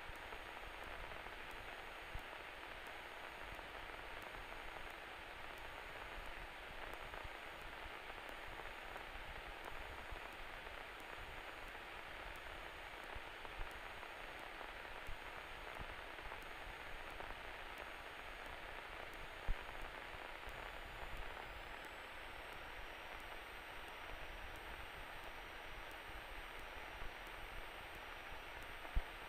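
Steady static-like hiss of a cockpit intercom and radio audio feed, with a faint steady hum and a few small clicks.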